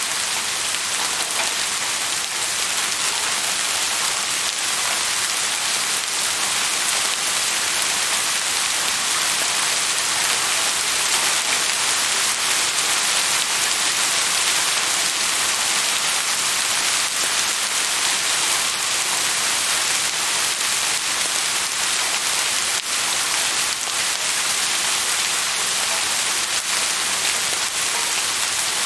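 Steady rainfall, a dense even hiss of drops with faint individual patters.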